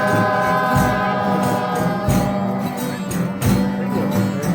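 Folia de Reis singers holding a long sung chord together, then moving on in the next line, with a drum thumping a slow beat and a tambourine underneath.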